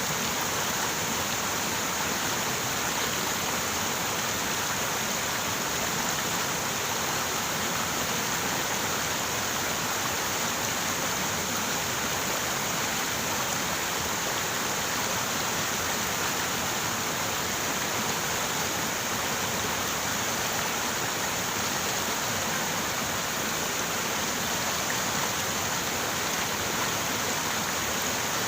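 River water running steadily over rocks, an even rushing without breaks.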